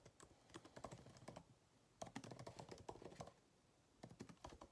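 Faint typing on a laptop keyboard: keys clicking in three short, irregular runs with brief pauses between them.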